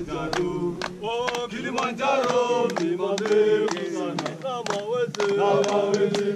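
A group of porters singing a song together in chorus, with several men's voices holding and bending long notes, and sharp hand claps keeping time a few times a second.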